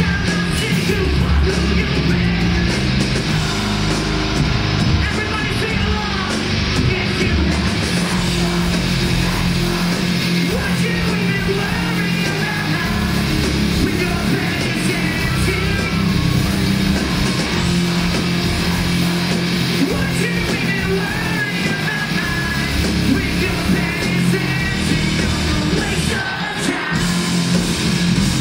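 Live post-hardcore rock band playing loud, with distorted guitars and drums under sung and yelled lead vocals, recorded from within the crowd.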